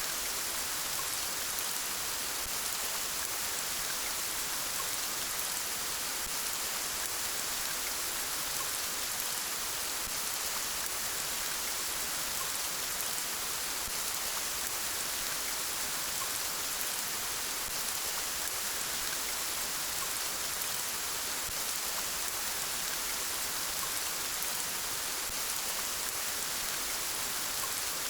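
Steady rainfall: an even hiss of rain falling on a surface, without change or let-up.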